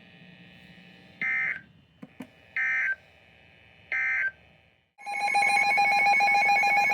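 Emergency Alert System end-of-message data bursts: three short buzzy digital chirps about a second and a half apart. About five seconds in, the steady, harsh two-tone EAS attention signal starts.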